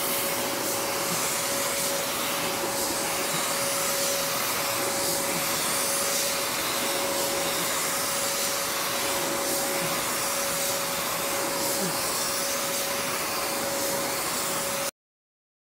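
Steady hiss of compressed air from a paint spray gun laying clear coat on a car door, over the steady hum of the inflatable paint booth's blower fan. Both cut off abruptly near the end.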